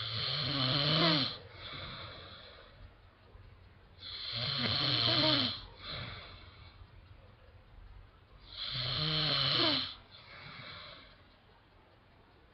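A man snoring heavily in his sleep: three loud snores about four seconds apart, each followed by a softer breath.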